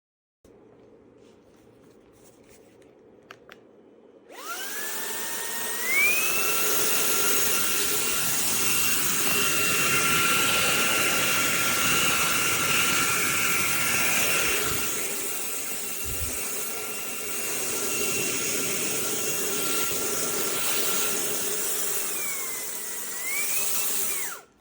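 Fanttik Slim V8 Apex cordless handheld vacuum's motor spinning up about four seconds in with a rising whine, then running steadily with a high whine and rushing air. Near the end its pitch dips and climbs back before it switches off abruptly.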